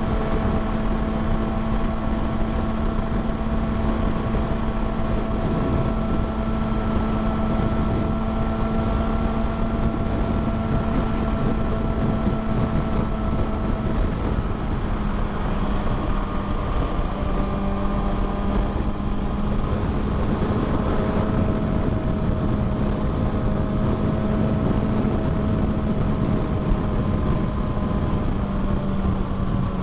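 2020 Kawasaki Ninja ZX-6R's inline-four engine running steadily at cruising speed under wind noise on the microphone; its pitch drops slightly a little past halfway and again near the end.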